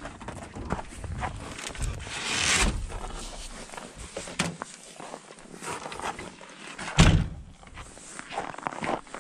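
Scattered knocks and thunks, with a longer swish about two and a half seconds in and one heavy thump about seven seconds in.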